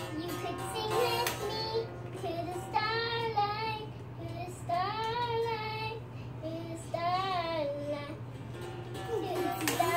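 A young girl singing, in separate drawn-out phrases whose pitch glides up and down.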